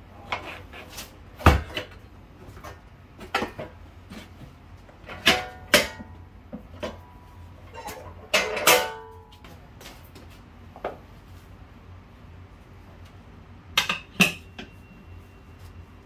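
Metal hand tools clanking and clinking in an irregular series of knocks, a few of them ringing briefly; the loudest clank, about halfway through, rings on for a moment.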